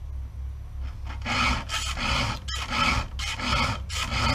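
Chainsaw chain being hand-sharpened with a file in a vise: rasping file strokes, about two a second, getting stronger a little over a second in.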